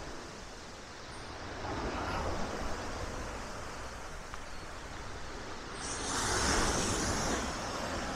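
Black Sea waves washing onto the shore: a smaller surge about two seconds in, then a louder wave breaking with a hiss about six seconds in and fading out.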